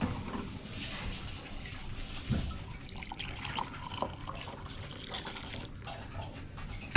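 Coffee poured from a glass drip-coffee-maker carafe into a ceramic mug: a steady trickling splash of liquid, with a few light knocks of the carafe.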